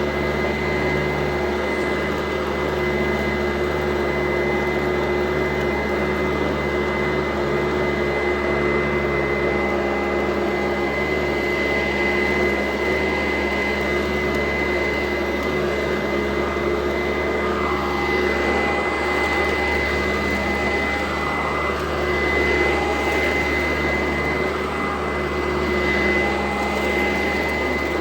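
Sanitaire SC899 upright vacuum cleaner running steadily while vacuuming. Its motor gives a steady high whine over the rush of air.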